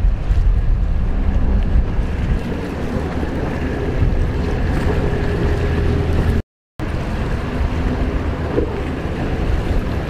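Racing jet skis' engines whining out on the water, mixed with heavy wind rumble on the microphone. The sound cuts out completely for a moment just past six seconds.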